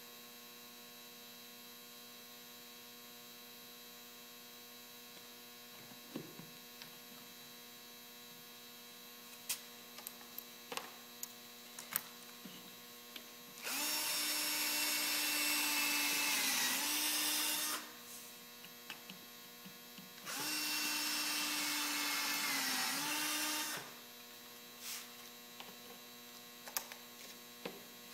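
Cordless drill driving two screws into a plywood mounting strip, two runs of about four seconds each, the motor pitch dipping near the end of each as the screw seats. Light clicks of screws and handling come between the runs, over a steady mains hum.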